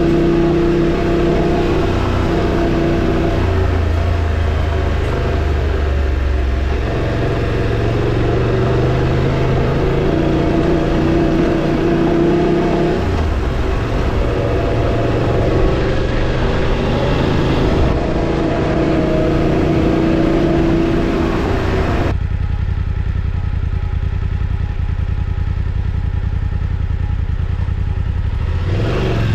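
A motorcycle engine running under way off-road, its engine speed rising and falling with throttle and gear changes. About three-quarters of the way through it settles to a low, even note, as if idling or rolling off the throttle, then picks up again at the end.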